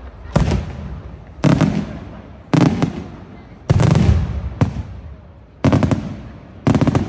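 Aerial firework shells bursting in a steady sequence: about one loud bang a second, seven in all, each trailing off in a fading rumble. A few land as quick clusters of two or three bangs.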